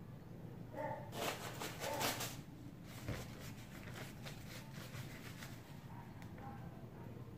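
A dog barks twice, about one and two seconds in, over the crinkling of a paper napkin being unfolded and held to the mouth.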